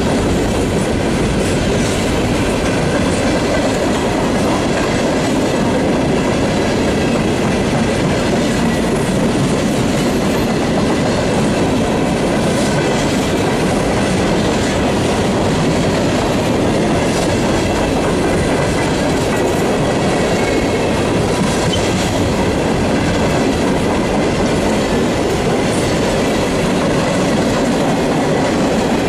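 An empty coal train's steel-wheeled coal cars rolling steadily past, with a loud, continuous rumble and clatter of wheels on the rails.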